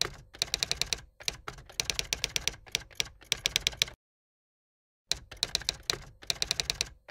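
Typewriter sound effect: runs of quick key clacks as text types out, stopping for about a second roughly four seconds in before starting again.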